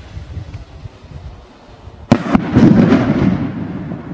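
Absolute Fireworks Final Assault display rocket bursting in the air: after a low rumble, a sharp bang comes about two seconds in, with a second close behind it, then a loud rolling rumble that fades.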